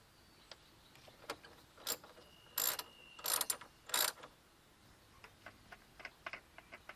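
Scattered sharp mechanical clicks and knocks of parts and tools being handled under the bonnet, with a louder cluster of knocks about halfway through.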